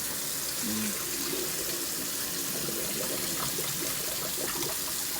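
Kitchen tap running steadily into a sink while cooked rice and its starchy water are poured into a strainer.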